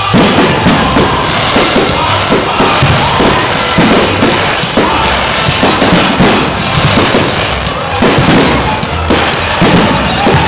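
A rapid barrage of aerial firework shells bursting, many bangs a second, starting abruptly and easing briefly near the end before picking up again, with music playing underneath.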